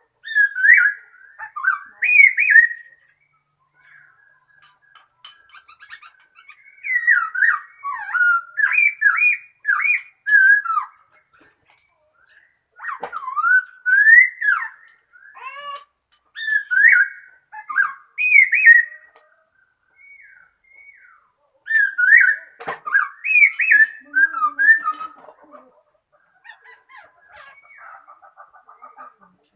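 A laughingthrush singing loud, rich whistled phrases with rising and falling notes, in bouts of a few seconds broken by short pauses.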